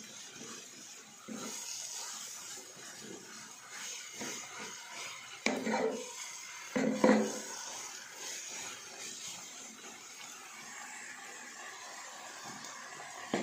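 Wooden spatula stirring and tossing rice vermicelli and vegetables in a non-stick frying pan, with small knocks and scrapes over a faint steady sizzle, and two louder clatters about five and a half and seven seconds in.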